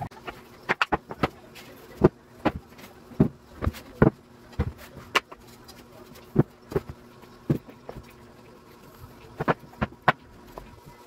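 Irregular sharp knocks and taps of cut blockboard panels being handled and set down on a wooden worktable, over a faint steady hum.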